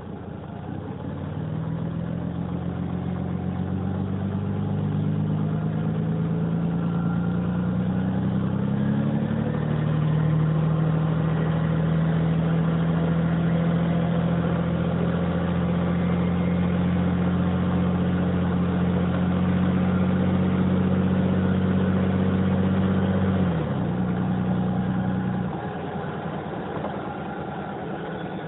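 Cummins LTA10-B252 turbocharged six-cylinder diesel of a Dennis Dragon double-decker bus pulling away: the engine note climbs over the first ten seconds, holds steady, then drops suddenly as the throttle comes off, and quietens again a couple of seconds later.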